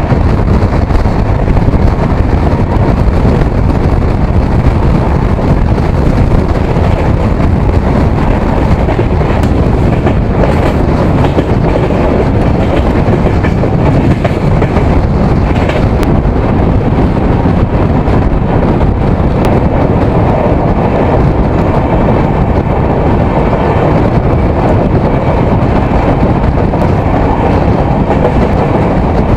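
Jan Shatabdi Express passenger train running between stations, heard from aboard: a steady, loud running noise of the coaches' wheels on the rails, with no changes or sudden events.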